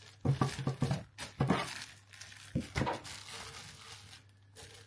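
Packaging crinkling and rustling as it is pulled off a boxed wax warmer, in several short bursts over the first three seconds, then quieter handling.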